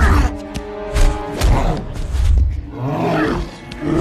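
Movie fight soundtrack: orchestral score under several heavy, deep punch impacts, then a growling roar from the Hulk a little after three seconds in.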